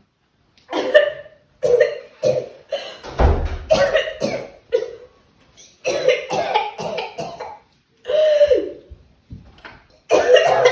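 A person coughing over and over in short, harsh fits with brief pauses between them, with a low bump about three seconds in.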